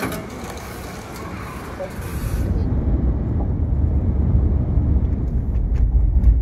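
Quiet shop room noise with a few faint clicks, which gives way abruptly about two and a half seconds in to the steady low rumble of a car driving on a motorway, heard from inside the cabin.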